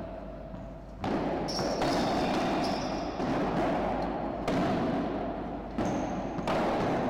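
Padel rally: the ball is struck by solid paddles and bounces off the court floor and walls. There are about seven sharp knocks, roughly a second apart.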